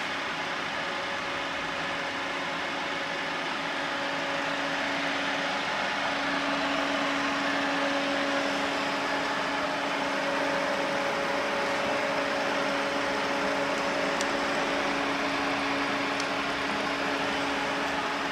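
Vernier FV3 milling machine running under power: a steady hum from its electric motor and gearbox, with a couple of steady tones, a little louder from about six seconds in.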